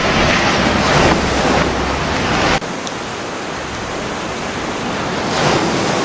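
Loud, steady rushing of floodwater, a dense roar with no pitch. About two and a half seconds in it cuts abruptly to a slightly quieter stretch of the same rushing noise.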